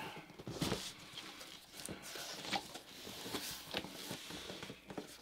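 Cardboard shipping box handled on a desk: set down and its flaps pulled open, giving a series of light knocks and cardboard rustles, the sharpest knock a little under a second in.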